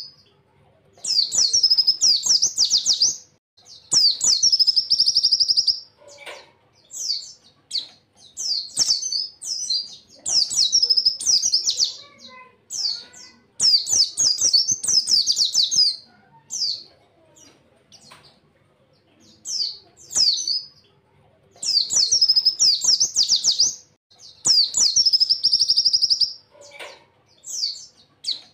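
A pleci (white-eye, Zosterops) singing in rapid, high-pitched bursts. Each phrase is a fast chattering trill lasting one to two seconds, repeated every few seconds with short pauses between.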